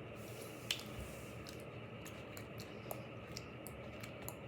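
Scattered light clicks and taps from handling a Popin' Cookin' candy kit and its dough, one sharper click near the start, over a faint steady hiss.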